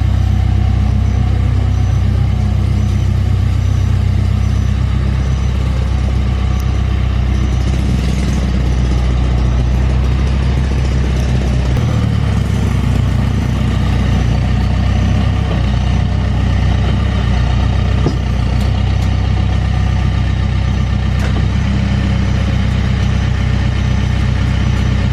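Heavy diesel engine idling steadily, its low note shifting about twelve seconds in.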